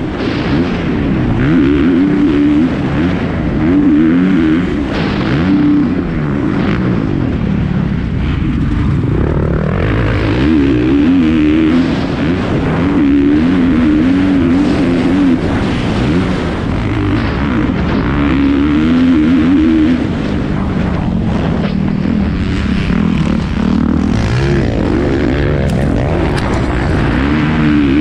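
Kawasaki off-road race dirt bike's engine at racing speed, its pitch rising and falling again and again as the rider works the throttle and gears, with wind rushing over the on-board microphone.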